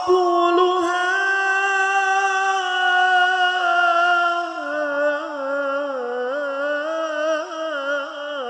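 A single voice singing one long held note of an Arabic sholawat, the pitch sinking slightly and then turning in wavering melismatic ornaments from about halfway.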